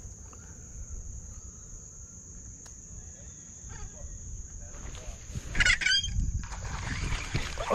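Steady high-pitched insect chirring throughout. About five and a half seconds in, a sudden loud burst of rustling and splashing, then low handling noise, as a small bass is hauled out of the lily pads onto the bank.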